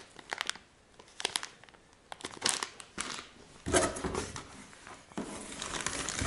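Plastic packaging crinkling in short, scattered crackles. About four seconds in it gives way to denser rustling of cardboard and plastic as a hand reaches into a cardboard box.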